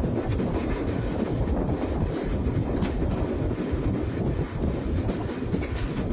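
Indian Railways express passenger coach running along the track, heard from on board: a steady low rumble of wheels on rails with a few light clacks over rail joints.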